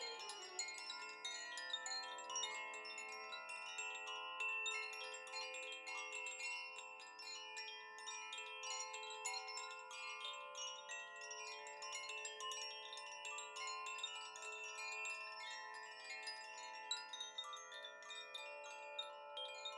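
Wind chimes ringing softly, many overlapping ringing notes sounding and slowly dying away.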